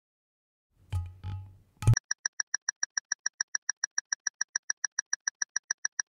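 A quiz countdown timer sound effect: rapid, evenly spaced electronic ticks, about eight a second, starting about two seconds in. Before it, a short low transition sound and a sharp click.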